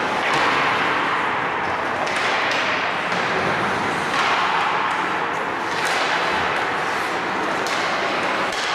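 Ice hockey play on the rink: skates scraping the ice in swells of hiss, with several sharp clicks and thuds of sticks and puck.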